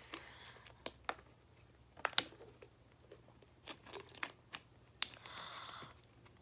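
Faint, scattered small clicks and taps, about a dozen spread unevenly, with a short soft hiss about five seconds in.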